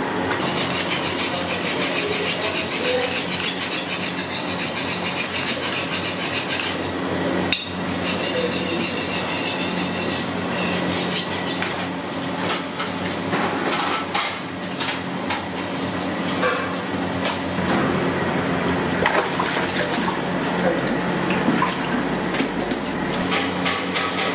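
Water sloshing in a metal pot, then scattered knife-and-metal clatter and knocks of a knife cutting fish on a wooden block, over a steady low hum.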